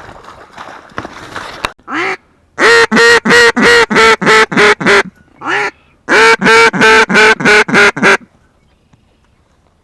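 Duck call blown close by in mallard-hen quacks: a single note, a string of about nine quacks, another single note, then a second string of about eight, about four quacks a second, stopping about eight seconds in.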